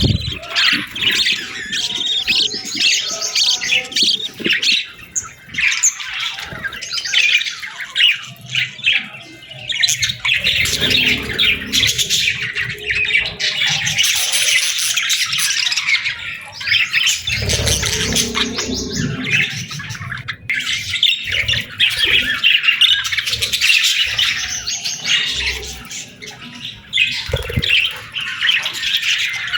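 Small birds chirping and chattering continuously in a dense, busy flock chorus of quick high notes, with lower, duller sounds twice, about ten and eighteen seconds in.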